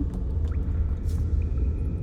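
Cave ambience: a steady low rumble, with a few faint drips.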